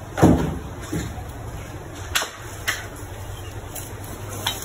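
Knife cutting a small seer fish on a wooden chopping block: a heavy thud a moment in, then a few short sharp knife taps against the block, over a steady low hum.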